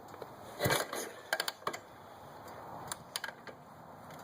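Yamaha SR500 single-cylinder engine being kicked over on the kickstarter without firing: one short rush of turning over about two-thirds of a second in, followed by clicks and knocks from the kickstarter and decompression lever.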